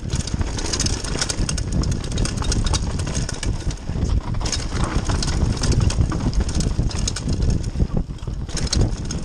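Mountain bike descending a dirt trail at speed: continuous tyre and wind rumble with constant rattling and clicking from the bike over rough ground.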